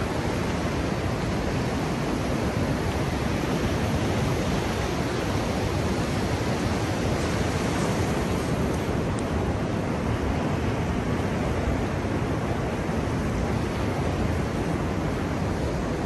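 Ocean surf breaking offshore and washing up the beach, heard as a steady, unbroken rush of water.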